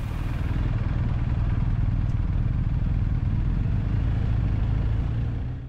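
BMW adventure motorcycle riding at steady road speed: a steady low engine drone mixed with wind and road noise. It cuts off suddenly at the very end.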